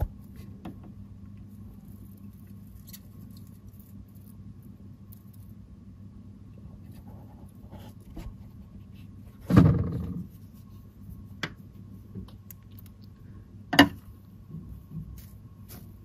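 A steady low hum with faint scratchy ticks, broken by two knocks: a heavier dull one about ten seconds in and a short sharp one near fourteen seconds, with a few lighter taps after.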